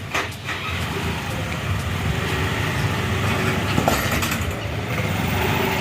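Scooter engine running steadily after a clutch plate and belt replacement.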